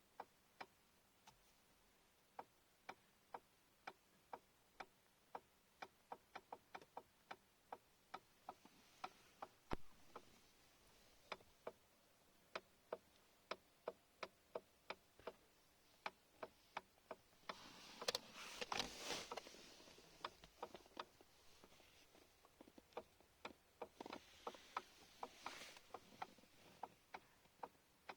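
Faint, sharp clicks and knocks from a BMW F20's steering column, coming irregularly about one to three a second: a fault in the column. Three stretches of soft rubbing or rustling noise come and go between the clicks.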